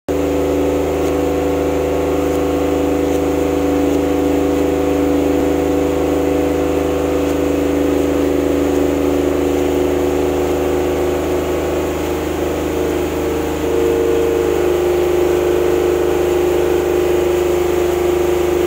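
Matsumoto MDG-20 SSE silent diesel generator, a two-cylinder air-cooled four-stroke diesel, running steadily under a floodlight load test bank drawing up to about 14.5 kW. About two-thirds of the way through, the hum dips briefly and its tone shifts as more load comes on.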